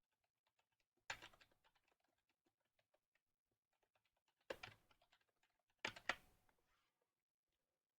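Faint typing on a computer keyboard: a run of soft key clicks, with a few louder clacks about a second in and again around five and six seconds in.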